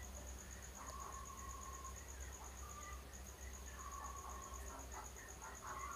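Faint background of a cricket chirping in a fast, steady high-pitched pulse over a low hum.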